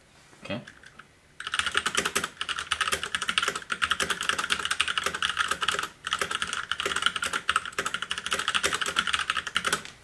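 Fast typing on an Ajazz K860T mechanical keyboard with red linear switches: a dense run of key clacks starting about a second and a half in, with a brief pause about halfway through.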